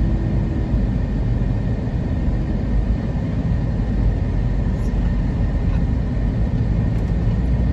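Steady low rumble of engine and tyre noise from a car driving on a paved road, heard from inside the cabin.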